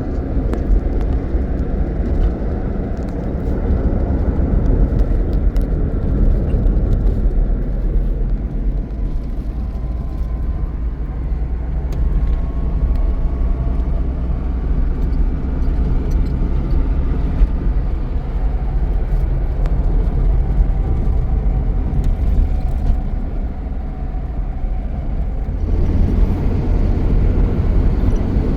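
A car running: a steady low engine and road rumble with light rattles, growing louder and deeper near the end.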